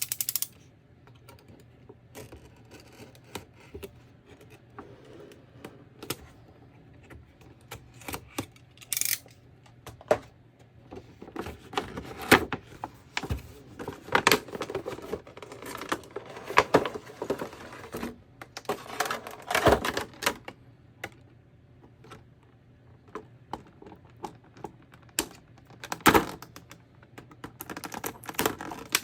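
Action figure packaging being handled and opened: irregular clicks, taps and rustles of cardboard and plastic, busiest in the middle with a sharp loud snap near the end.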